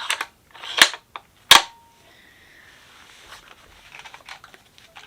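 Bolt of a bolt-action rifle sliding forward into the receiver and closing with a sharp metallic clack about a second and a half in, followed by a few lighter handling clicks.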